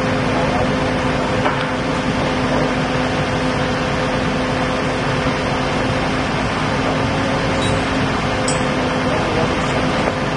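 Heavy diesel engine of a mobile crane running steadily, a constant drone with a low, even hum.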